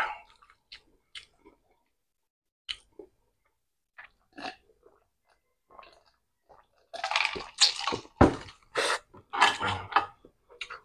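Close-miked eating and drinking sounds: scattered soft mouth clicks and smacks, then from about seven seconds in a run of louder gulps and chewing sounds as he drinks from the glass and eats. A metal spoon scrapes against the pan near the end.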